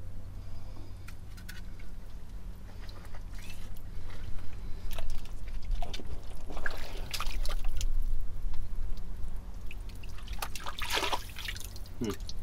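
Wet privy fill being dug through, with scattered clicks and scrapes and the dripping and sloshing of liquid muck, over a steady low hum. Two louder noisy stretches of digging come about midway and near the end.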